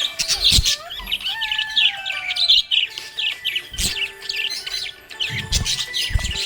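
Budgerigars chirping and warbling in a rapid, busy stream of short high chirps mixed with a few gliding whistles. Several dull low thumps come in among the chirps.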